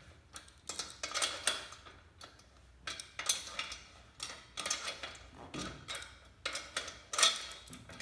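Metal bolts being loosened with a hand tool: short bursts of metallic clicking and scraping, coming in separate spurts about every second or two.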